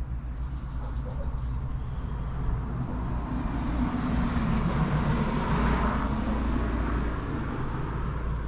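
A road vehicle passing by: its noise builds for a few seconds, peaks around the middle and fades away, over a steady low rumble.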